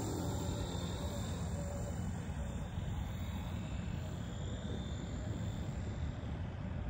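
Radio-controlled helicopter flying some distance away: a faint, steady whir of its electric motor, rotor and 3D-printed PETG carbon-fiber main gear, running quietly under a low rumble of wind on the microphone.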